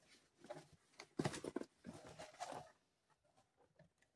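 Faint handling of a cardboard box: short scuffs and light knocks as its flaps are turned and opened, the loudest about a second in.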